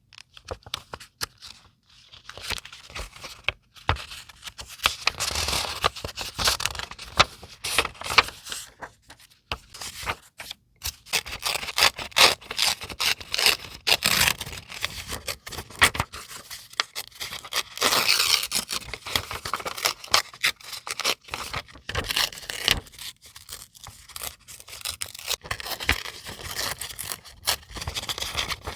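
Paper and scrapbooking materials being handled close up: an unbroken run of irregular scratchy rustling and scraping, with many sharp little ticks and clicks.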